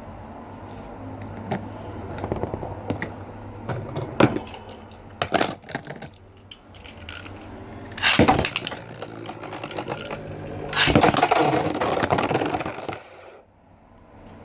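Beyblade Burst spinning tops clicking and clattering against each other with metallic rattles. There is a loud burst of clashing about eight seconds in, then a longer run of grinding and rattling from about eleven seconds that stops suddenly near the end.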